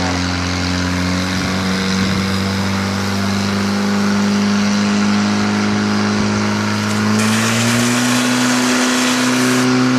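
Portable fire pump engine running steadily at high revs, its pitch stepping up slightly about seven and a half seconds in as the hose lines open. From about seven seconds a hiss of water jets spraying from the nozzles joins it for a couple of seconds.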